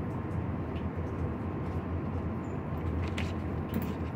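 Steady low machine hum with an even hiss over it, and a couple of faint clicks near the end.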